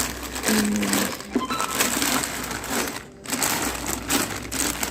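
Plastic packaging crinkling and rustling as jewellery pieces are handled and unwrapped, with a short pause about three seconds in.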